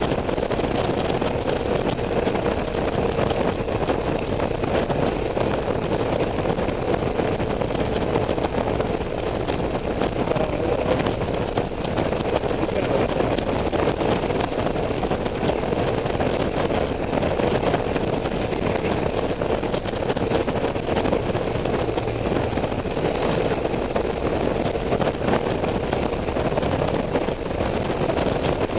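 Honda Silver Wing motorcycle cruising at steady highway speed: a steady engine drone with a faint even hum, mixed with wind and road noise around the rider.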